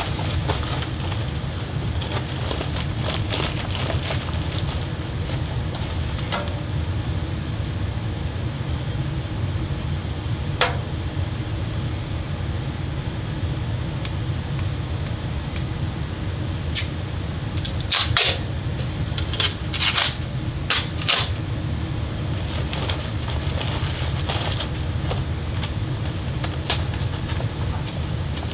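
Steady low hum with scattered sharp crinkles and clicks, bunched together a little past the middle, from aluminium foil tape and ducting being handled at the fan's exhaust port.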